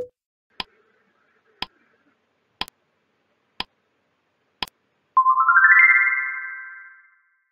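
Quiz countdown timer sound effect: five short ticks about a second apart. Then a quick rising run of bright chime notes rings out and fades as the answer is revealed.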